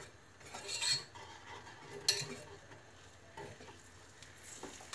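A spatula stirring a thin cocoa, sugar, water and oil mixture in a small enamel saucepan, with a few light scrapes against the pan, the clearest about a second in and again at about two seconds.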